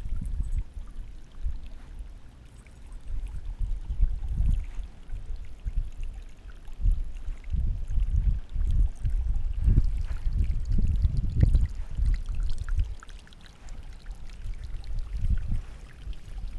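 Wind buffeting the camera microphone in uneven gusts, a low rumble that swells and fades.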